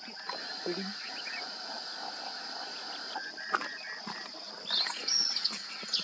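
A steady, high-pitched drone of insects, with a single click about halfway through. A few short, high bird calls come near the end.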